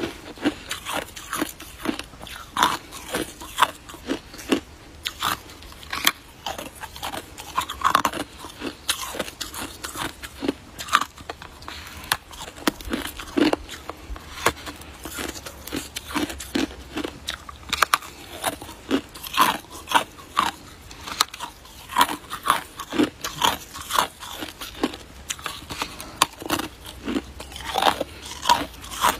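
Hard icicle ice being bitten and chewed: a quick, irregular run of sharp crunches and cracks, several a second.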